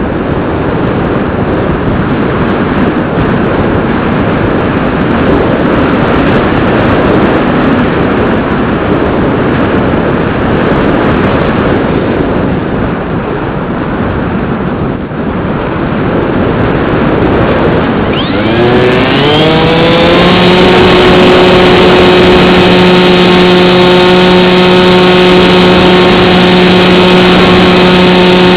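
Airflow rushing over the onboard camera of a Bixler 2 RC plane in flight. About 18 seconds in, its electric pusher motor and propeller spin up in a quickly rising whine and then hold at one steady pitch.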